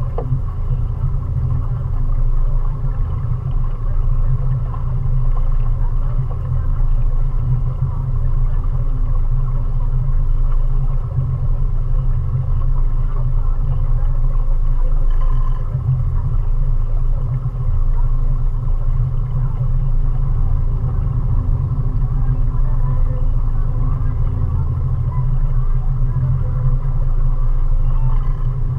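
Mariner 20 hp outboard motor running steadily under way, a constant low drone with no change in speed.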